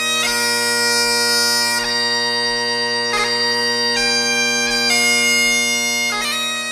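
Bagpipe music: steady drones under a slow melody that moves to a new note every second or so, with a faint low beat underneath.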